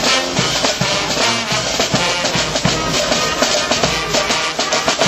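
A Dutch street brass band (dweilorkest) playing an up-tempo tune, with brass over a steady drum beat.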